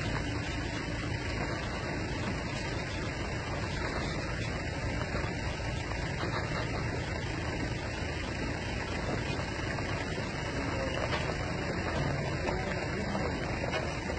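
Heavily loaded road-train trailers rolling past on a dirt road: a steady, even rumble of tyres and running gear.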